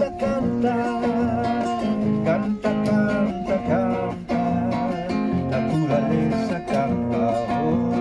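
Nylon-string classical guitar strummed in a steady rhythm, with a man singing over it in the first few seconds.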